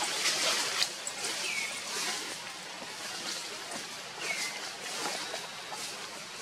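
A monkey chewing and handling soft, wet ripe mango: scattered small wet clicks and squelches. A short falling chirp repeats every two to three seconds.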